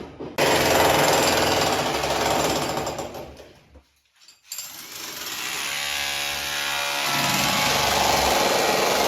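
Demolition hammer chipping at masonry, fading out about four seconds in. After a brief silence another power tool starts and runs steadily.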